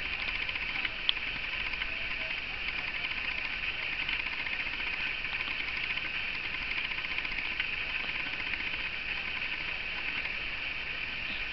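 A single sharp hiccup about a second in, with a few fainter ticks later, over a steady high-pitched hiss.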